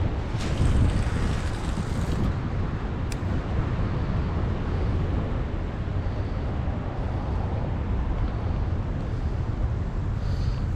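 Wind buffeting the microphone outdoors: a steady, gusty rumble, with a single faint click about three seconds in.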